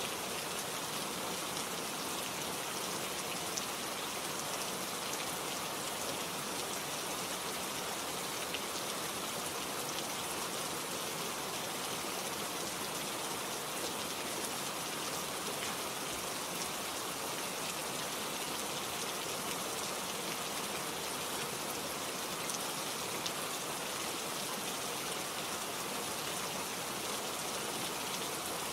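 Steady rainfall, an even hiss with scattered individual drops ticking on surfaces.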